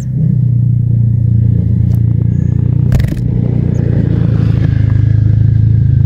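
A loud, steady low hum, with a brief clatter about three seconds in.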